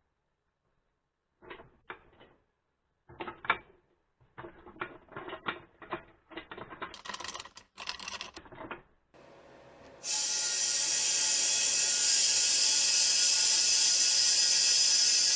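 A run of irregular mechanical clicks and rattles, like small metal parts being handled or ratcheted. About ten seconds in, a machine starts and runs steadily with a loud hiss and a steady whine.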